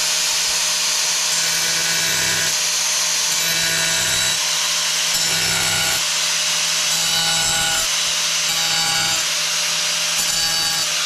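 Angle grinder cutting a hole in a thin ceramic tile: a steady hiss of the blade, with a pitched whine that comes and goes in about six short bouts as the blade bites into the tile.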